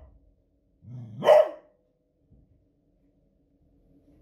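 A beagle gives one loud alarm bark about a second in, a short low sound leading into it, barking at fireworks noise.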